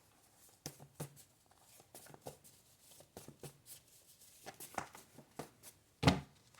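Tarot cards being handled: scattered soft clicks and card taps, with one louder thump about six seconds in.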